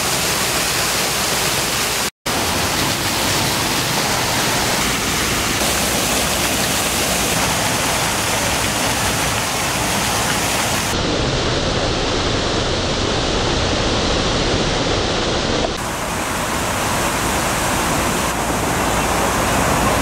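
Water from a large sculptural public fountain cascading over and down its stone blocks in a steady, loud rush of falling and splashing water, broken for a split second about two seconds in.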